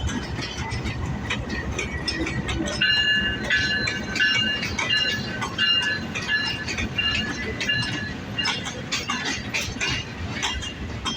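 A passenger train rolling through the station, with a low rumble and the clatter of wheels over rail joints. From about three seconds in until near the end, a high squeal repeats in short pulses about twice a second.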